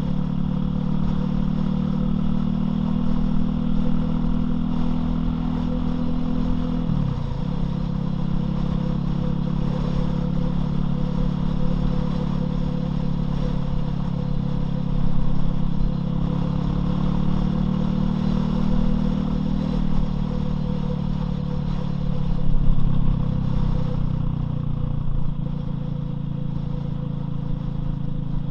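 Loncin LX250-12C's single-cylinder engine running steadily while riding, with a brief break and shift in the engine note about seven seconds in, like a gear change.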